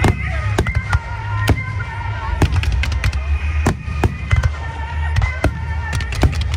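Fireworks going off in irregular succession, about a dozen sharp bangs and cracks, over recorded music playing through loudspeakers.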